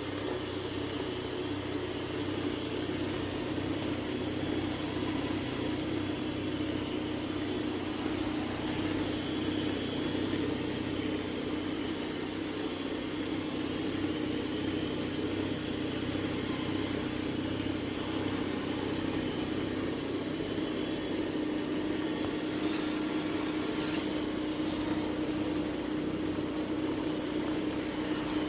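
MOVA P50 Pro Ultra robot vacuum's base station running its mop-pad washing cycle: a steady motor hum with one strong low tone, and a couple of faint clicks near the end.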